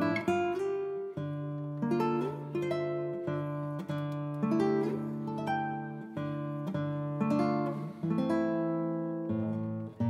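Background music: acoustic guitar playing slow chords, each one struck and left to ring out and fade.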